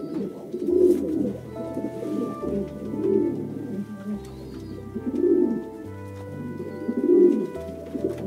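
A pigeon cooing, four low coos spaced about two seconds apart, over background music.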